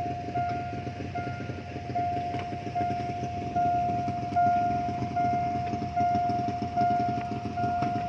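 Railway level-crossing warning bell ringing steadily, one ding about every 0.8 s with the ring sustained between strikes, signalling that the barriers are down for an approaching train. Waiting engines idle underneath.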